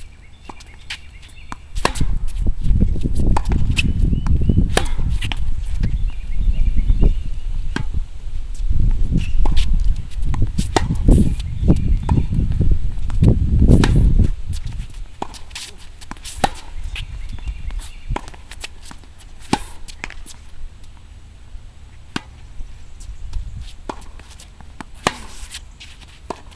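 Tennis balls struck by racquets and bouncing on a hard court during a baseline rally: a string of sharp pops at an irregular pace. For about the first half a loud low rumble of wind on the microphone runs under the hits, then drops away.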